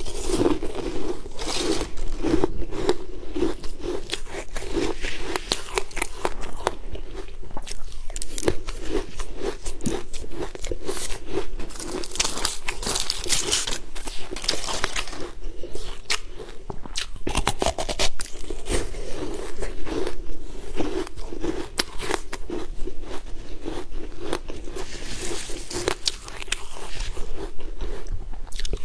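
Close-miked crunching and chewing as a person bites into a hard, crunchy sweet ice treat on a stick, a dense run of sharp crackling bites.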